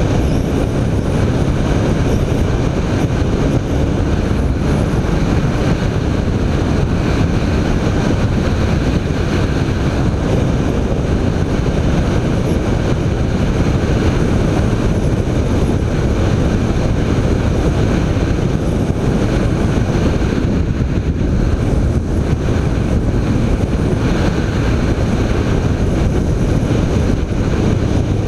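BMW K1300 R's inline-four engine running steadily under way, mixed with wind noise on the microphone.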